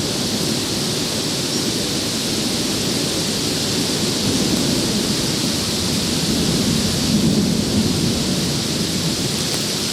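Downburst rainstorm: steady noise of wind-driven heavy rain, heard through a plastic bag covering the camera, with a low rumble of wind beneath.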